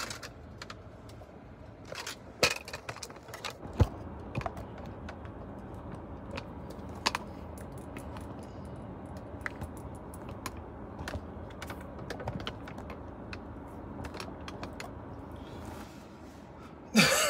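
Scattered small clicks, taps and knocks from a phone being handled and positioned, over a low steady hum.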